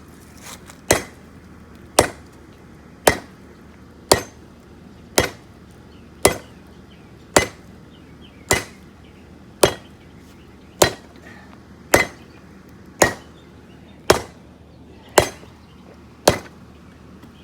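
Blacksmith's hand hammer striking hot steel in about fifteen steady, evenly spaced blows, roughly one a second, each with a short metallic ring. The blows stop about a second before the end.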